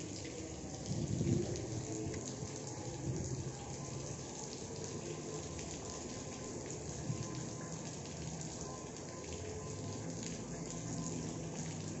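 Steady rain falling on river water, a constant hiss of many small drops, with a brief low bump about a second in.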